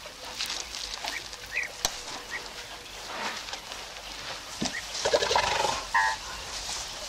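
Birds calling: scattered short chirps, then a louder, harsher burst of calling about five seconds in, ending in a brief pitched call.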